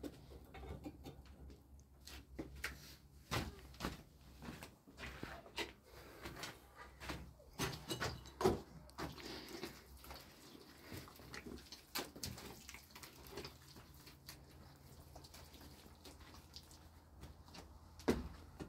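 Irregular light knocks, clicks and short scrapes of hand work, over a low steady hum.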